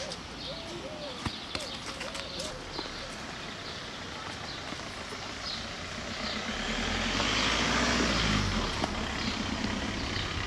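A road vehicle passes by, its rumble building from about six seconds in, peaking, then fading. Before that, a bird calls in short repeated phrases, with an occasional sharp knock.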